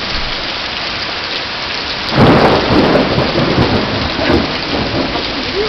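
Thunderstorm: steady rain, then about two seconds in a sudden loud thunderclap that rumbles on and fades over the next few seconds.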